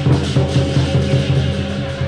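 Lion dance percussion: a large Chinese drum beating fast and steadily under clashing cymbals.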